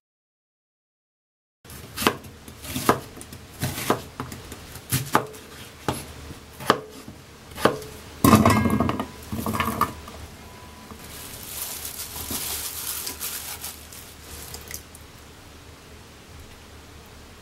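Cut potato chunks tumbling from a bowl into a rice cooker's metal inner pot in a loud clatter about 8 seconds in. Before it comes a run of about eight single sharp knocks of food being handled and dropped, and a softer rustling hiss follows.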